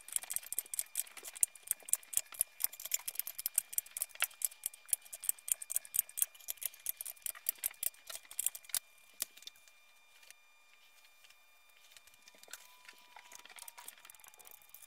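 Rapid light metallic clicking from a 3/4-inch wrench being worked on the nuts that press a 6-71 Roots blower's timing gears down onto the rotor shafts, several clicks a second. The clicking thins out to a few scattered clicks about nine seconds in.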